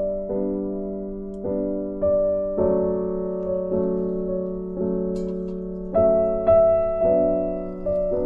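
Background piano music: slow chords struck one after another, each left to fade before the next.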